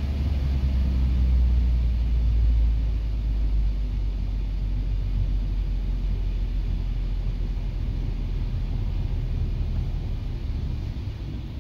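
Inside the cabin of a moving 1996 Acura Integra GSR: its engine and the tyres on a wet road make a steady low rumble, a little louder in the first few seconds and then easing off.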